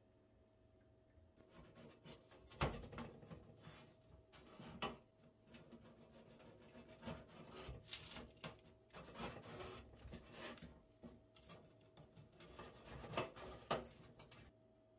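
Irregular rubbing and scraping of things being handled, with a few sharp knocks, starting about a second and a half in and stopping just before the end; a faint steady hum underneath.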